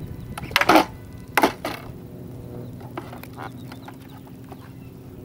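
Pneumatic retractable landing gear of a CARF Spark RC jet model being cycled in a test: sharp clacks with short bursts of air as the gear legs swing and lock, the loudest in the first two seconds, then fainter clicks.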